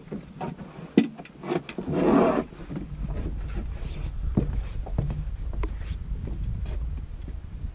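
Knocks and clatter of gear on a small fishing boat, with a loud short rush of noise about two seconds in. After that a steady low rumble sets in, like wind buffeting the microphone.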